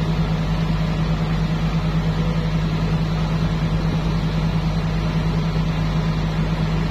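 Heavy engine running steadily at constant speed: an even low hum that does not rise or fall.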